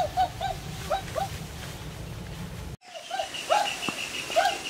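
Short pitched animal calls, first in a quick run and then, after a brief break in the sound, a few more spaced further apart over a faint steady high tone.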